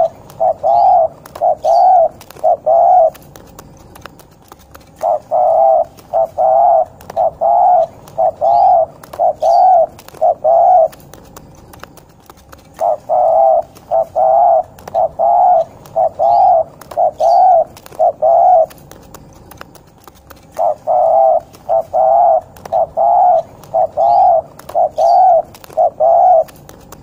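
Derkuku (island collared dove) giving its 'ngorok' cooing call: runs of short, even coos at about two a second, in phrases several seconds long with short pauses between. Faint high chirps of small birds sound behind it.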